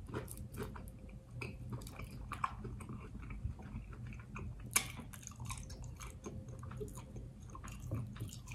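A person chewing a mouthful of chicken pot pie egg roll: soft, wet mouth clicks and smacks throughout, with one sharper click about five seconds in.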